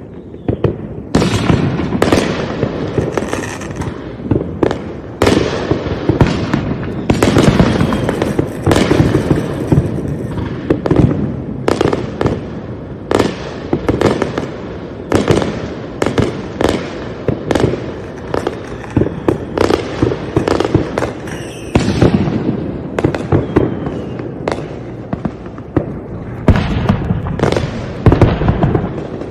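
Fireworks going off in a dense, continuous barrage: many sharp bangs and booms in quick succession, overlapping with crackle, and a cluster of louder bursts near the end.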